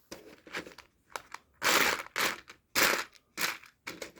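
Plastic Lego Technic pieces being handled and rummaged through: a run of short rustling, clattering plastic noises, the two loudest about two and three seconds in.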